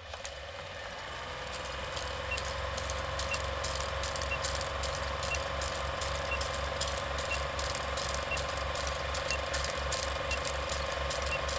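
Film projector sound effect: a steady motor hum with fast clattering clicks and a pulsing low rumble. It fades up over the first two seconds. A short high blip sounds once a second, marking the countdown.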